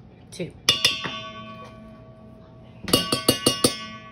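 Metal spoon striking a stainless steel mixing bowl, each hit leaving the bowl ringing: two strikes about a second in, then a quick run of about five taps near the end, as adobo sauce is knocked off the spoon.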